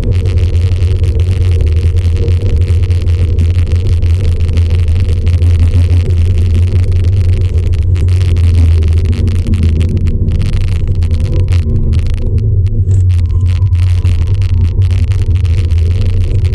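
Subaru Impreza's flat-four engine heard loud from inside the cabin while driving at speed, a deep steady drone that holds a fairly even pitch, with road and wind noise over it.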